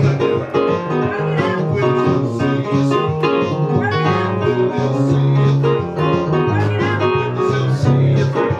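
Instrumental music with keyboard and a bass line of held low notes under a busy run of higher notes.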